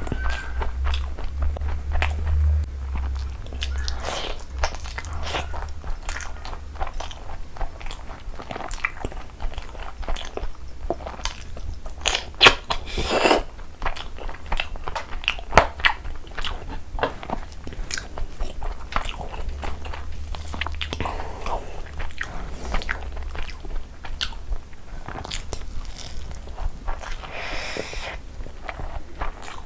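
Close-miked eating: a person biting and chewing, with crunching and many irregular clicking mouth sounds, some louder crunches about halfway through.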